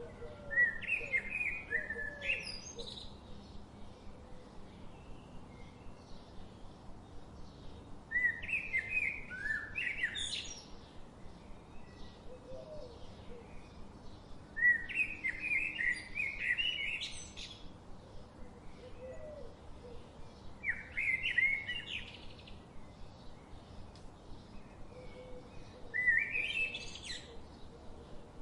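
A songbird singing five short, warbling phrases about six seconds apart, each a quick run of notes ending in an upward sweep. A faint, even ticking runs underneath.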